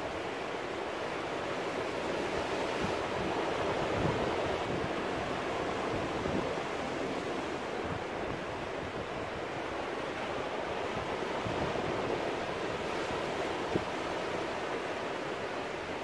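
Ocean surf breaking and washing over rocks: a continuous rush of water that swells a little now and then.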